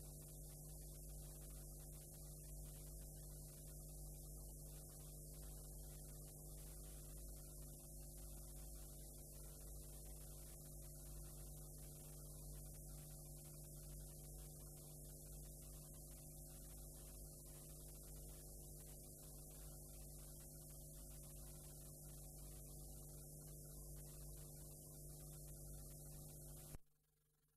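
Faint playback noise from a blank stretch of videotape: steady mains hum with a buzz of overtones and high hiss. It cuts off suddenly with a click near the end.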